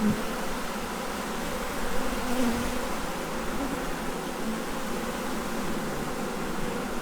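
Honey bees humming steadily around an opened hive as its frames are inspected, with a couple of brief louder buzzes from single bees flying close by.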